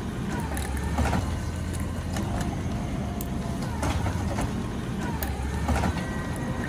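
Garbage truck engine running with a steady low rumble. Over it come a few sharp clicks and short whines that dip in pitch.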